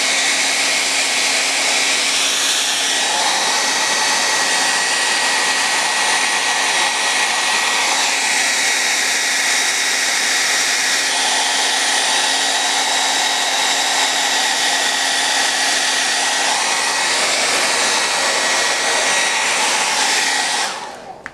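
Revlon hand-held hair dryer blowing steadily, a loud rush of air over a constant low hum, switched off just before the end and quickly winding down.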